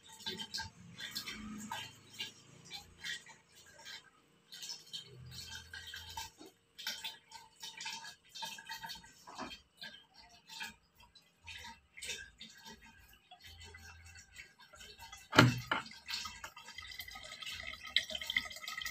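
A thin stream of water trickling from a plastic hose of a LeveLuk Kangen water ionizer into a plastic jug, with scattered light knocks and handling clicks, and one louder thump about fifteen seconds in.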